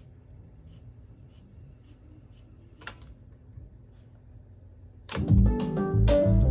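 Otari MX-5050 BII-2 reel-to-reel tape deck with faint regular ticks and a low hum, then a click about three seconds in. Just after five seconds, music played back from the tape starts loudly, with keyboard-like sustained notes.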